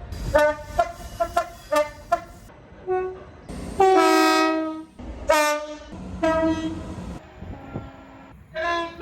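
Train air horns sounding a series of chord blasts: several quick short toots in the first couple of seconds, then a longer, louder blast about four seconds in, followed by more blasts at different pitches.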